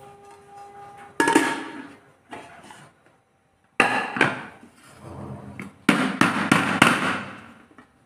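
Clanks and knocks from an aluminium pressure cooker pan being turned upside down onto a plate and handled, with a quick run of about four knocks on the pan near the end, the sort used to loosen a baked cake.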